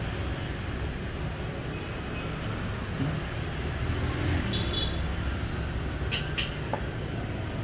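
Small phone screws clicking twice, close together, about six seconds in, as they are taken out of a smartphone's midframe with a precision screwdriver and set down. Under them runs a steady low background rumble.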